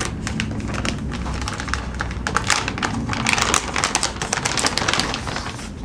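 Plastic packaging bag being opened and handled by hand, crinkling and rustling with many small sharp crackles.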